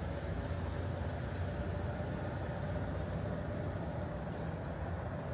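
Steady low rumble of vehicle traffic, with a faint steady tone over it.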